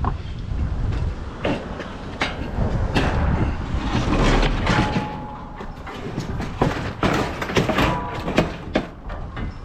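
Bulky scrap being handled and loaded: a run of irregular knocks, clanks and rattles, with a brief metallic ring about five seconds in and again near eight seconds.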